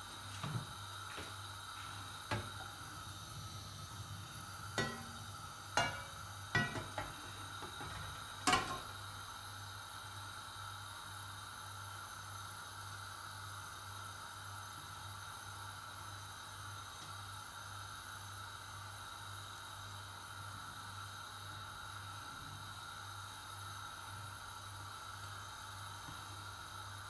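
Oil heating in a frying pan on a gas stove: a faint, steady hiss and hum, with about six light clicks and knocks in the first nine seconds.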